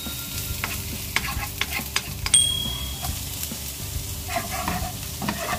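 Diced carrots sizzling in a nonstick wok while a wooden spatula stirs and scrapes them, with frequent clicks of the spatula against the pan. A handful of diced onion is tossed in about four seconds in.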